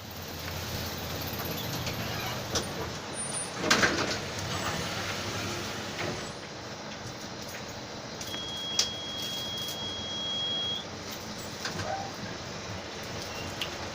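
Mercedes-Benz OF-1722M bus running, with a loud short burst about four seconds in and a thin steady high tone for a couple of seconds past the middle.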